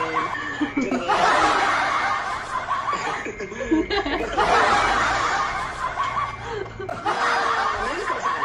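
People laughing in several breathy bouts of giggling and chuckling.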